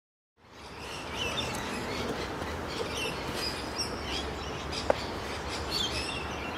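Small birds chirping here and there over a steady low background noise, fading in from silence about half a second in. One sharp click about five seconds in.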